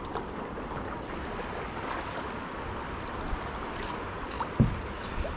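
Steady rush of river current through riffles around a plastic kayak, with paddle strokes in the water. A single low knock on the hull about four and a half seconds in.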